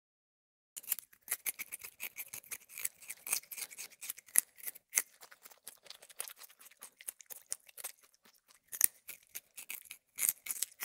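Rabbits chewing and nibbling fresh grass: a quick, irregular run of small crisp crunching clicks, with a short pause near the end.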